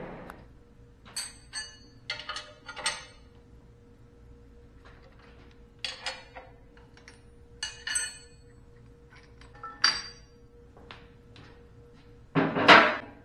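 Steel wrench and clamp parts clinking and clanking as hold-down clamps are undone on a boring mill's cast-iron table, in short separate knocks a second or two apart. A heavier clunk comes near the end, over a faint steady hum.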